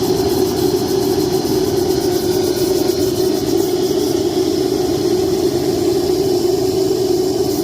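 Home-built steam injector running on boiler steam at around 130 to 140 psi: a steady, loud rush of steam and water with a strong low hum.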